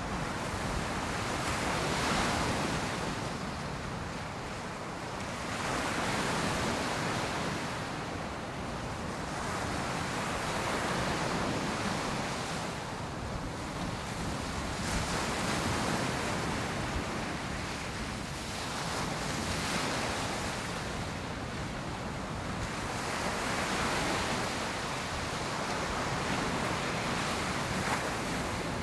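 Ocean surf breaking on a sandy beach: a steady wash of waves that swells and eases every few seconds.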